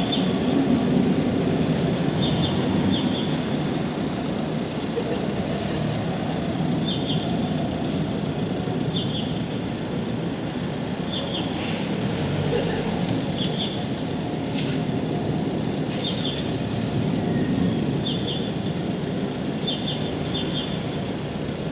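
A bird repeating short, high chirps every second or two, often in twos or threes, over a steady low rushing background noise.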